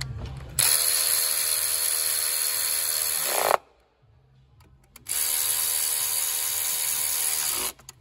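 Cordless electric ratchet running twice, driving down the two coil pack retaining bolts: a steady motor whine for about three seconds, a pause of about a second and a half, then a second run of about two and a half seconds.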